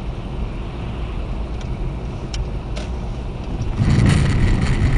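Steady engine and road rumble of a car, heard from inside the cabin through a dashcam, with a few light clicks; it grows louder about four seconds in.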